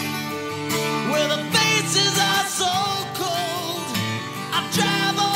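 Background music: a song with a singing voice over guitar.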